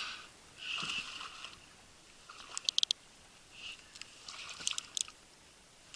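Spinning reel working against a freshly hooked fish that is pulling hard. There are two short stretches of reel whirring and a few quick clicks in between.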